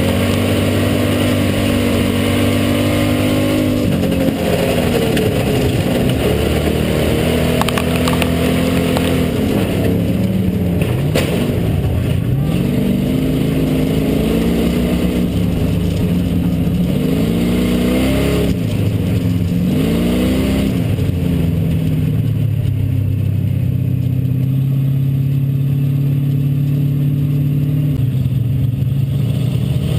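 Hobby stock race car's engine heard from inside the car, running loud. Its pitch falls and climbs again several times as the throttle is lifted and reapplied, then holds steady near the end.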